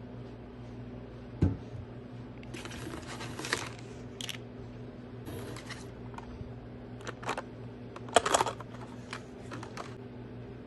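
Personal-care product containers being handled: a sharp knock about a second and a half in, then short hissing strokes and small clicks, over a steady low hum.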